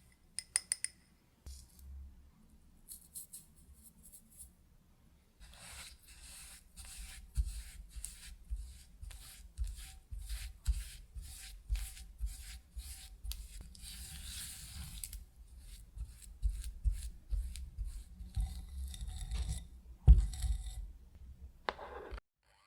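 Kitchen handling sounds while baking: a few sharp clicks, then a long run of rhythmic scraping and rubbing strokes, about two a second. A single knock comes near the end.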